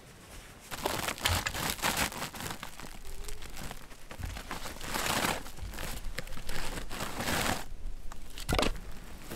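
Large plastic bag crinkling and rustling as pieces of firewood are pulled out of it, with a single sharp knock near the end.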